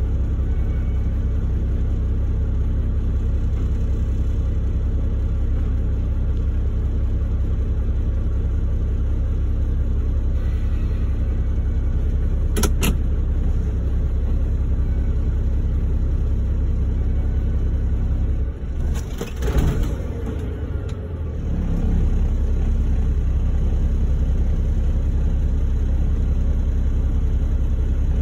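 Truck engine idling steadily, heard from inside the cab of a log truck that is being loaded. A single sharp knock comes near the middle. A few seconds later there is a brief jumble of knocks and a falling creak while the hum dips.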